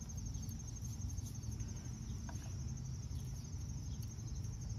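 Insects chirping steadily in the background, a rapid, even, high-pitched pulsing trill, over a low steady rumble, with a couple of faint light ticks.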